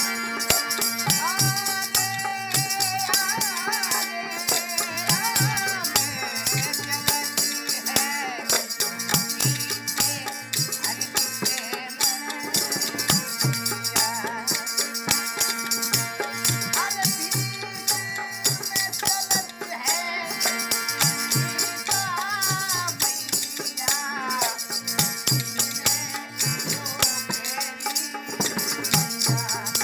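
Rajasthani devotional bhajan played live: a man sings in phrases over a harmonium's held reed chords, with a dholak drum and a jingling tambourine keeping a steady beat.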